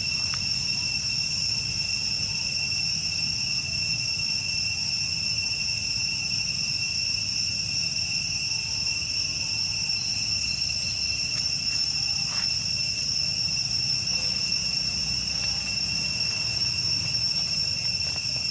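Steady, unbroken high-pitched chorus of insects, with a low rumble underneath.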